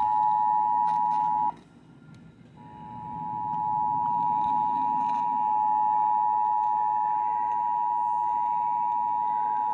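Emergency Alert System attention signal: a loud, steady two-tone alarm near 1 kHz. It breaks off about one and a half seconds in and sounds steadily again about a second later.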